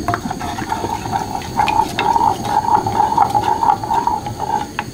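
Wooden spoon stirring warm white wine in a stainless steel saucepan, with many small scrapes and taps of the spoon against the pan and a swish of liquid. The wine is not yet bubbling.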